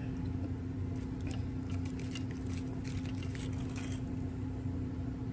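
Light crackles and small ticks of a crunchy taco shell being handled and lifted from its holder, over a steady low hum. The crackling stops about four seconds in.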